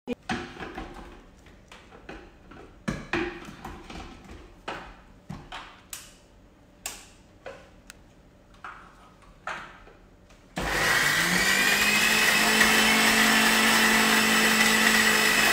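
Scattered knocks and clatter of food and a blender jar being handled at the counter. Then, about ten seconds in, an electric countertop blender switches on and runs steadily with a high whine, grinding leftover poha and cooked vegetables into a batter.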